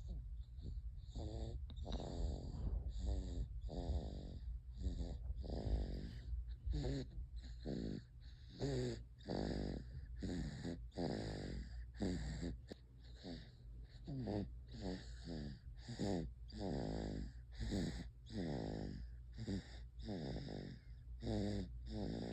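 Snoring: a long run of short, wheezy pitched snores, many falling in pitch, coming about once or twice a second over a steady low hum.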